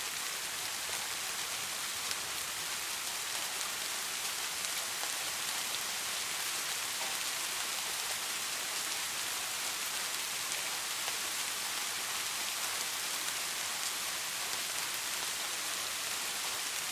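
Steady rain falling on a surface: an even, bright hiss dotted with many fine drop ticks, with no thunder.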